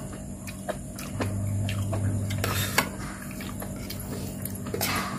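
Metal spoon clinking and scraping against a ceramic plate during eating, in scattered light clicks and short scrapes. A low steady hum comes in about a second in and lasts about a second and a half.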